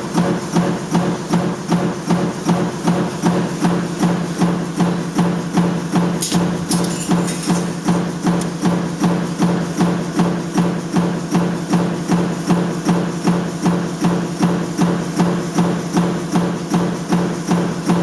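Sheet-metal stamping press running in continuous stroke: regular knocks a little over two a second over a steady motor hum.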